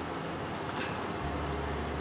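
Steady background hiss with a low hum and a faint, steady high-pitched whine. There is a faint tick about a second in.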